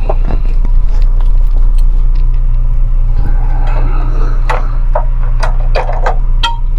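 A steady low hum, with a series of sharp clicks and knocks in the second half from a ceiling-mounted fluorescent tube light fixture being handled and taken down.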